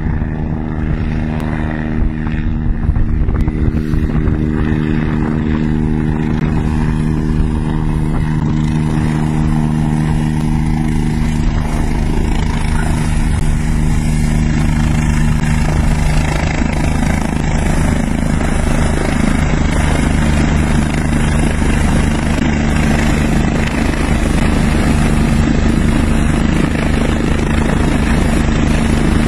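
A Eurocopter EC145 helicopter's rotor and twin turboshaft engines run loud and steady with a constant droning hum as it closes in and hovers just beside the slope. A rushing roar of rotor downwash and blown snow grows louder from about halfway through.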